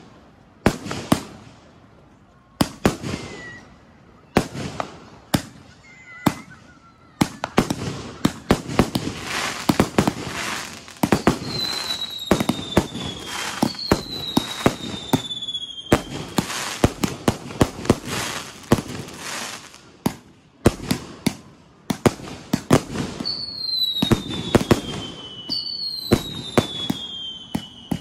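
Fireworks and firecrackers going off close by: a string of sharp bangs, thickening into dense crackling through the middle. Four whistles slide down in pitch, two about halfway through and two near the end.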